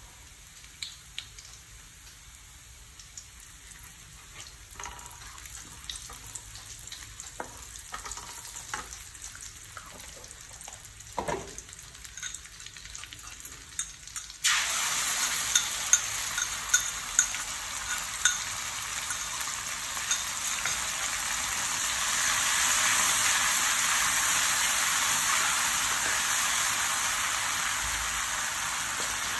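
Minced garlic frying gently in oil in a wok, with light scrapes and taps of a wooden spatula. About halfway through, sauce is poured in and the pan suddenly breaks into a loud sizzle with a few sharp pops, then keeps up a steady loud hiss as it is stirred.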